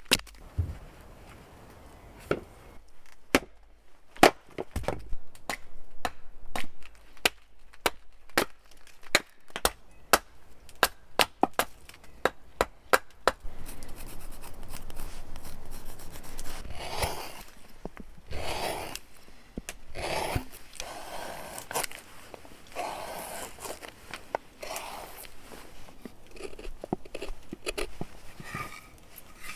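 Birch wood being hand-carved into a bowl. For roughly the first half there is a run of sharp chopping strikes into the wood. After that come slower, longer scraping cuts, each a second or so long, as wood is shaved away.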